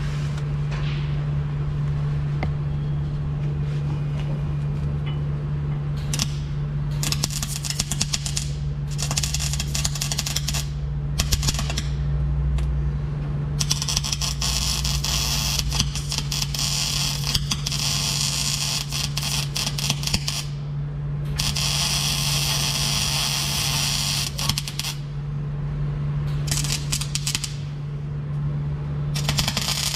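Electric arc welding on steel tubes: the arc crackles in a series of welds, several short runs and a long one of about seven seconds midway, over a steady low hum.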